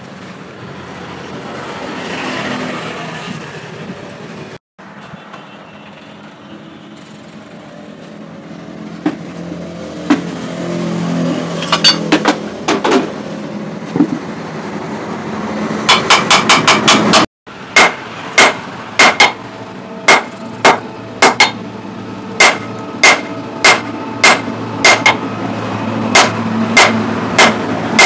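Hammer blows on steel, each strike ringing like struck metal: scattered blows from about halfway in, a quick flurry, then a steady series of about one and a half blows a second. Before the hammering, a steady noisy rumble with no strikes.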